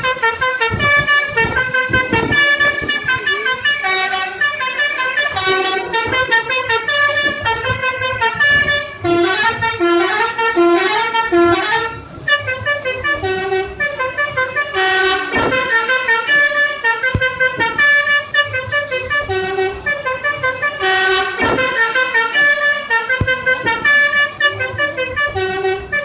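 A bus's 'telolet basuri' musical air horn playing a tune: a rapid run of short, loud horn notes jumping between pitches several times a second, the phrases repeating over and over.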